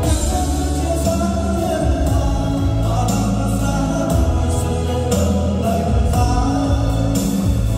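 Music with singing over heavy bass notes.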